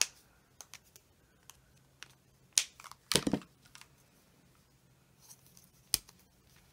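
Stampin' Blends alcohol markers being handled on the desk, their plastic caps and barrels giving scattered light clicks and taps, with a louder clatter about three seconds in and a single sharp click near the end.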